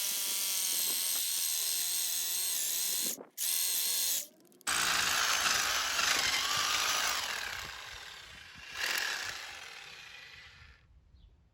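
Harbor Freight electric jackhammer running: a steady motor whine over rapid hammering. It stops briefly twice about three to four and a half seconds in, starts again, and dies away over the last few seconds.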